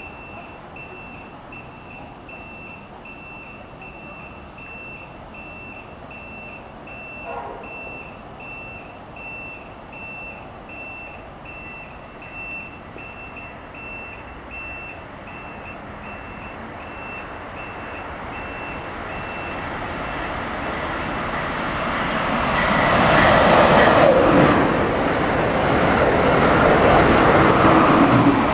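Amtrak Keystone passenger train led by an ACS-64 electric locomotive approaching and rushing past at speed, its rumble building over the last ten seconds and loudest as the locomotive goes by. Before that, a high electronic beep repeats about twice a second and fades out.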